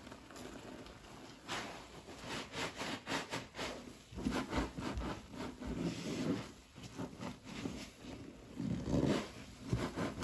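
A sponge being squeezed and kneaded by rubber-gloved hands in deep suds, giving irregular wet squelches and sloshes. The squeezes come in uneven bursts, with the loudest near the middle and near the end.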